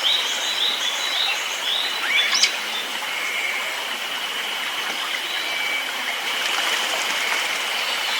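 Steady rushing hiss of a forest stream, with a small songbird giving a quick run of short repeated notes in the first second or so and a single fast rising note about two seconds in. A thin, steady high tone runs underneath throughout.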